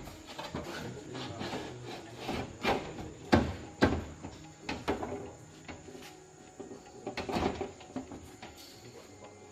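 Irregular knocks and scraping, as of hand tools and parts being handled in a workshop, with two louder knocks in quick succession a little past the middle.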